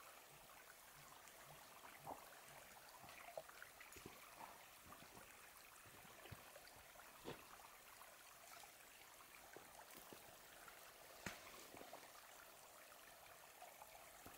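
Near silence: a faint steady hiss, with a few soft clicks and rustles spread through it as the hammock's suspension line is handled at the tree.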